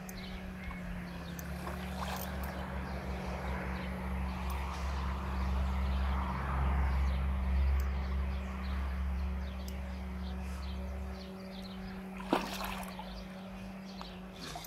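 A steady low rumble that stops about eleven seconds in, then a sharp splash about a second later as a hooked fish thrashes at the pond's surface.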